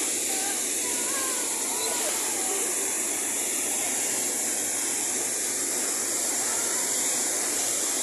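Steady rush of a large waterfall plunging into its pool and churning downstream, with faint distant voices underneath.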